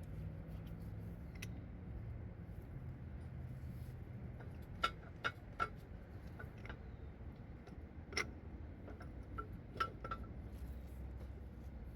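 Metal parts of an M5R1 five-speed transmission clinking and tapping together as they are handled during reassembly. Three quick clinks come about five seconds in, then single ones near eight and ten seconds, over a low steady hum.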